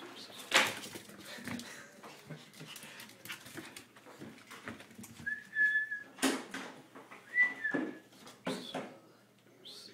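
Small dog giving a few sharp yips, with two high thin whines in between in the second half.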